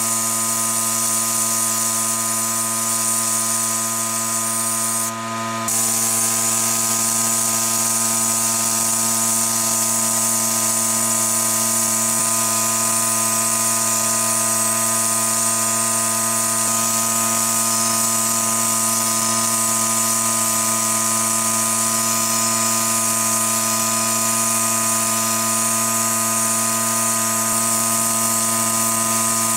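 Sandblasting gun in a blast cabinet hissing steadily as abrasive is blasted onto a rusty saw blade and then its wooden handle, with a steady machine hum underneath. The sound dips briefly about five seconds in, then carries on unchanged.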